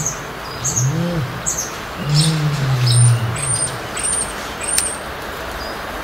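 Male North African ostrich booming: two short, deep hoots, then a longer low boom about two seconds in, the display call of a breeding male with a swollen red neck. Small songbirds chirp short high notes over it.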